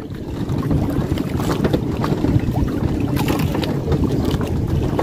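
Wind buffeting the microphone on a small fishing boat at sea: a steady, rough rumble with boat and water noise, and a few light clicks in the middle.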